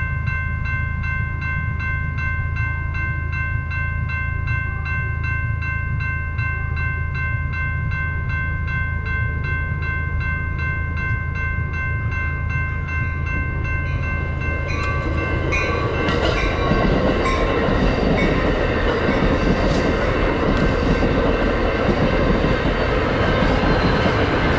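Railroad crossing bell ringing in even, rapid strokes while a passenger train approaches. About fifteen seconds in, the ringing gives way to the growing rumble and rail clatter of the train passing the crossing.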